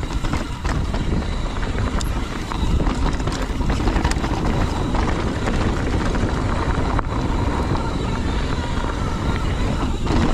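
Mountain bike riding down a rough, rocky trail: a steady low wind rumble on the microphone, with tyres rolling over rock and a constant stream of sharp clicks and rattles from the bike.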